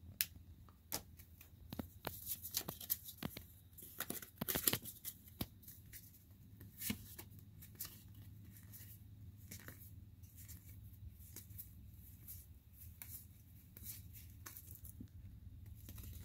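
Pokémon trading cards being flipped through by hand: quick light snaps and rustles of card stock, busiest in the first seven seconds or so, then fewer and fainter.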